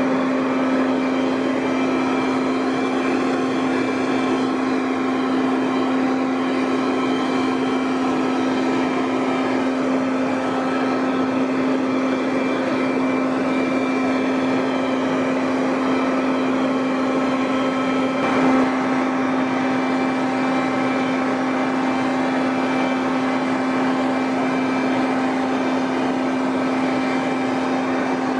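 Toro Ultra electric leaf blower running steadily at full speed. Its motor and fan give a steady whine over the rush of air as it blows wet leaves.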